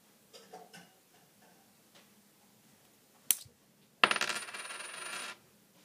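A quarter drops onto a wooden table and rattles for about a second and a half with a high metallic ring before it settles and stops suddenly. A single sharp click comes about a second before the drop.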